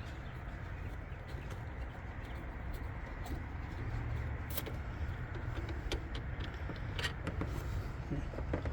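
A few faint metallic clicks of a wrench and the A/C pressure switch being handled as it is unscrewed, over a steady low rumble.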